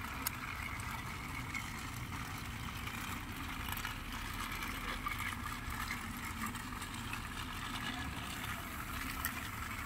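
Steady low background hum and hiss, like a distant engine running, with a couple of faint ticks.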